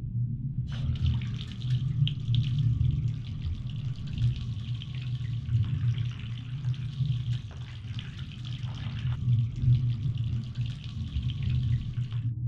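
Bath tap running, a steady stream of water splashing into the tub, starting about a second in and cutting off abruptly near the end. A low steady drone runs underneath throughout.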